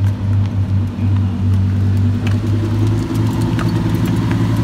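Twin-turbocharged Lamborghini Huracán's V10 idling with a steady, even note.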